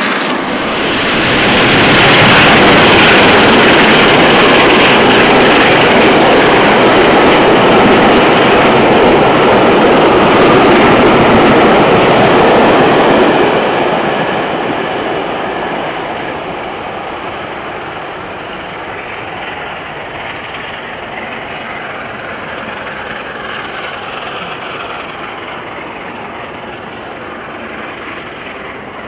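A steam-hauled passenger train passing close by: the coaches' wheels rolling loudly along the rails for about the first thirteen seconds, then the sound fades and settles as the train, hauled by Peppercorn A1 Pacific 60163 Tornado working hard, draws away.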